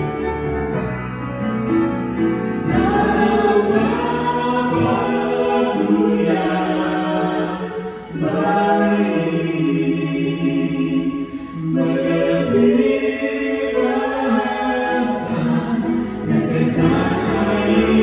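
A small group of singers singing a gospel worship song together into microphones, the voices amplified over steady musical backing.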